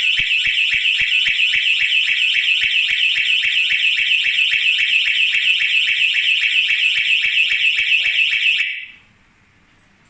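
GSM home alarm system's siren going off, set off by its PIR motion detector: a loud, high-pitched electronic tone pulsing about four times a second. It cuts off abruptly about nine seconds in.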